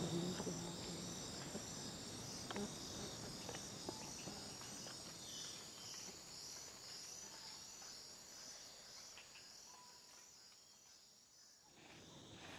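Chorus of Amazon rainforest insects, cricket-like, trilling in a steady, evenly repeating high pulse. It fades lower near the end, then rises again.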